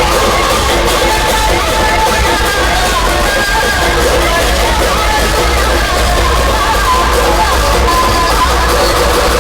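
Loud music played through a large DJ sound system, with a heavy, continuous bass.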